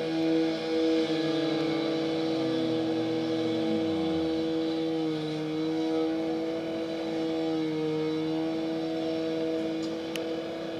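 Engine running steadily, its droning hum dipping slightly in pitch now and then, with a second, lower engine tone falling away about three to four seconds in.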